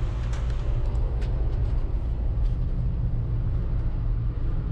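Steady low rumble of a road vehicle on the move, with a few faint clicks over it.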